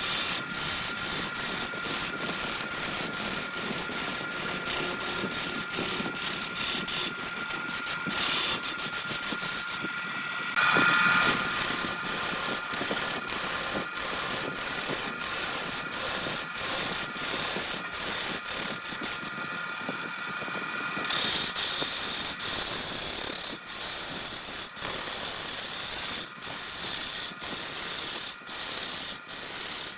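Wood lathe running with a turning tool cutting the spinning wood: a rough scraping noise over a faint steady whine, broken by quick regular gaps, and louder about a third of the way in.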